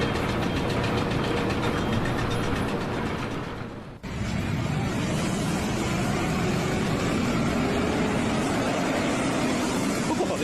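Engine-driven machinery running steadily; about four seconds in, the sound cuts abruptly to another steady machine noise.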